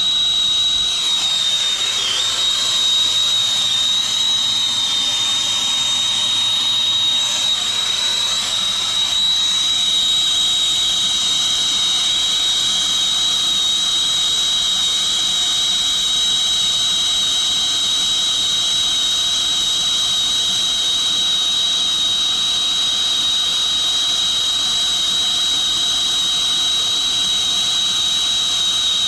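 Air-acetylene brazing torch flame burning steadily at a copper joint: a continuous hissing rush with a steady high whistle running through it, wavering slightly in the first several seconds.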